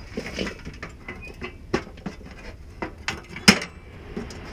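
Gear being rummaged through in a vehicle's cargo area: scattered clicks and knocks of items being moved, with the sharpest knock about three and a half seconds in.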